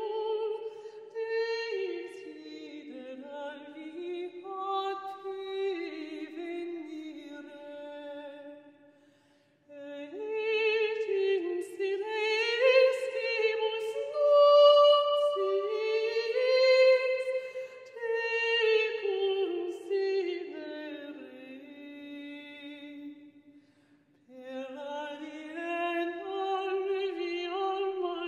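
Unaccompanied female voice singing a slow melody with vibrato, in long sustained phrases broken by two short pauses, about a third of the way in and again near the end.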